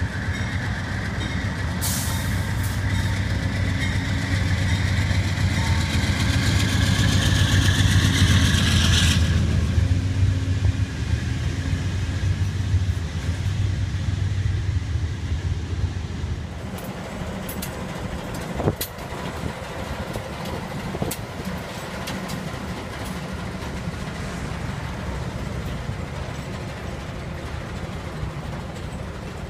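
An Amtrak GE Genesis diesel locomotive passes at speed with its passenger train: a heavy engine rumble with a loud rushing of wheels and air that drops off about nine seconds in as the cars stream by. Later a diesel switcher locomotive rumbles more quietly beside covered hopper cars, with a few sharp metallic clanks.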